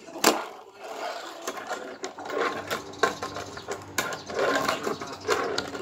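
Fingerboard tricks on a miniature handrail set: a sharp clack of the board hitting down about a quarter second in, then its wheels rolling and rattling along the tabletop, with more small clicks of the board knocking the obstacle.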